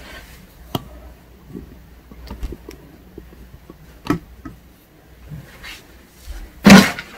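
Scattered soft knocks, clicks and rustling of a person moving about, then one loud, short thump near the end.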